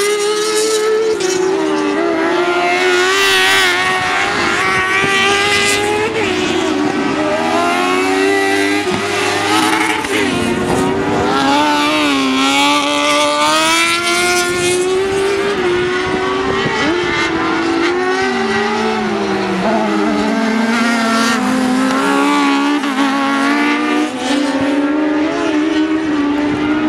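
Racing buggy engines revving hard, their pitch climbing and dropping again and again as the buggies accelerate and lift around the circuit.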